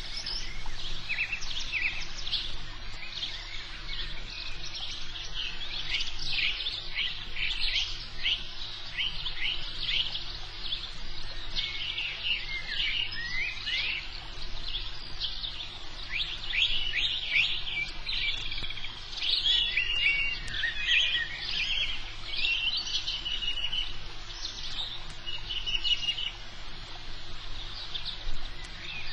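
Birds chirping and calling continuously, many short high chirps and quick trills overlapping, over a low steady hum.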